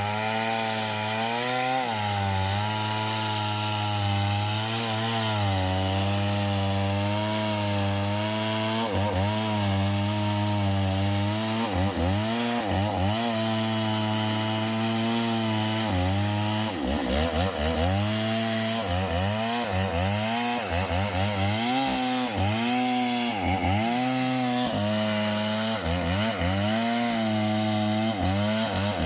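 A mini chainsaw runs continuously while cutting into a kapok tree trunk. Its engine note holds fairly even at first, then from about nine seconds in it repeatedly sags and picks back up as the chain works through the wood.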